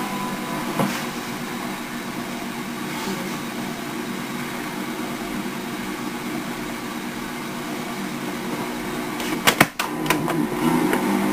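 Cassette tape playing through a silent stretch between songs: a steady hiss with a low hum, and a quick cluster of sharp clicks about nine and a half seconds in.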